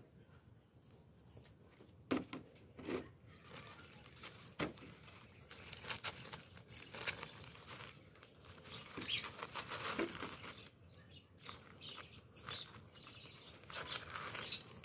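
Thin black plastic polybag crinkling and tearing as it is peeled off a plant's root ball, with soft rustles of potting soil and a few sharp clicks.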